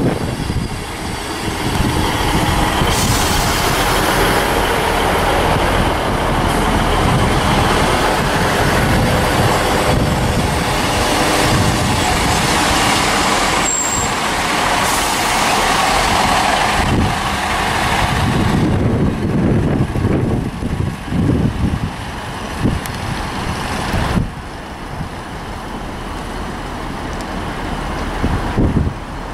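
Class 158 and Class 153 diesel multiple units running slowly past: diesel engines and a broad hiss and rumble from the wheels, with a brief high squeal about halfway through. After about 19 s the noise eases to a low engine rumble, which drops further a few seconds later.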